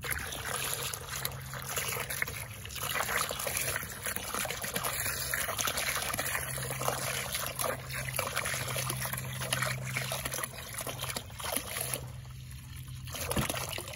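Water pouring from a watering can's spout into a half-full plastic water bucket, a steady splashing trickle that starts suddenly and thins out about two seconds before the end.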